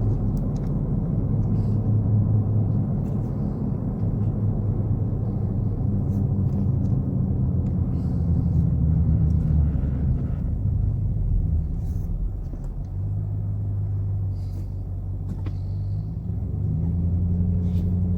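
Car engine and tyre noise heard from inside the cabin while driving slowly, a steady low hum that eases off about ten seconds in and picks up again near the end.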